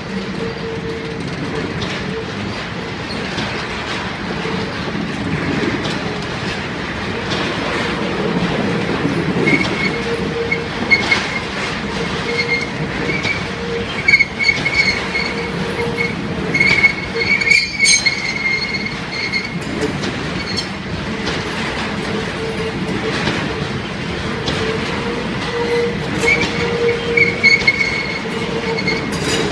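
A freight train of loaded flat wagons rolling past, steel wheels running on the rails with a steady low whine. Higher-pitched wheel squeals come and go from about ten seconds in, with scattered sharp clicks over the rail joints.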